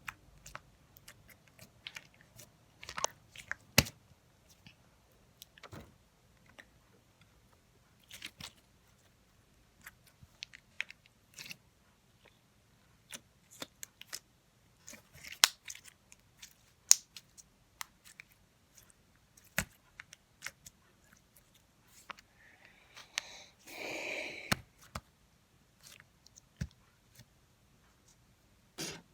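Slime being squished and worked by hand, giving scattered sticky clicks and pops, with a short rustling stretch near the end.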